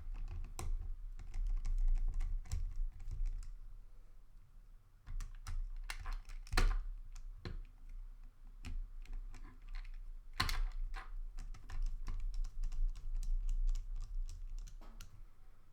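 Irregular small clicks and taps of a Phillips screwdriver and hard plastic toy-car parts being handled as screws are taken out of the chassis and circuit board, with low handling bumps underneath.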